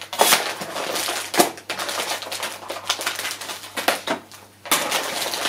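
Scissors snipping open a plastic packaging bag, the plastic crinkling and rustling with many small sharp clicks, and a short pause about four seconds in.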